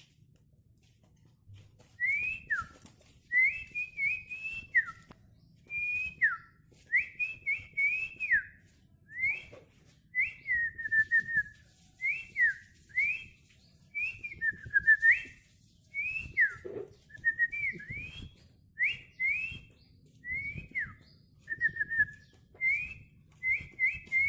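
A person whistling a melodic run of clear short notes that glide up and down, starting about two seconds in and carrying on in quick phrases with brief pauses.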